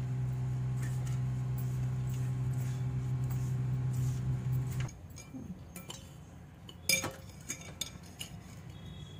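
A steady low hum runs for about the first five seconds and then cuts off suddenly. After it stops, a few sharp clinks of a spoon against dishes come, the loudest about seven seconds in, as the soaked sugar is added to dough being mixed by hand in a steel pot.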